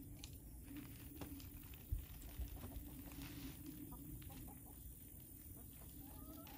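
Domestic hens clucking faintly, with a few short calls near the end, among soft knocks and rustles.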